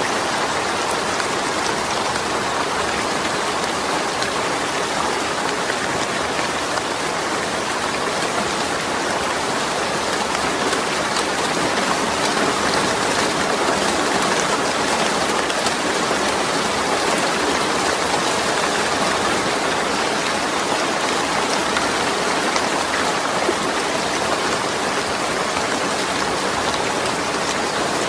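Steady rain falling without thunder, an even hiss with fine patter of drops.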